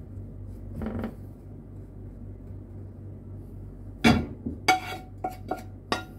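A wooden spatula knocking against a metal pan about five times in quick succession, the pan ringing briefly after several of the knocks, over a steady low hum.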